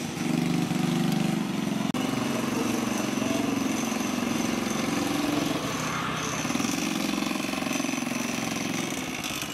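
Small motorbike engine of a custom fat-tire Honda Chaly running steadily as it is ridden at low speed, with a brief dropout about two seconds in.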